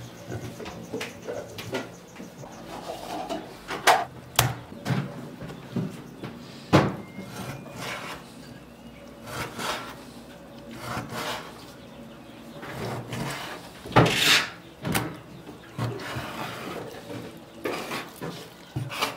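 A large kitchen knife cutting raw beef on a wooden cutting board: irregular knocks of the blade on the wood, with scraping and rubbing between them. The loudest knocks come about 4, 7 and 14 seconds in.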